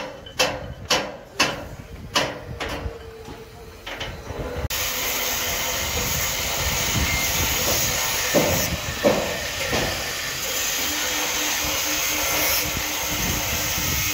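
Construction-site work noise: a quick series of sharp knocks with short ringing tails, about two a second and fading out over the first four seconds. Then a sudden switch to a steady hiss, with two louder knocks a few seconds later.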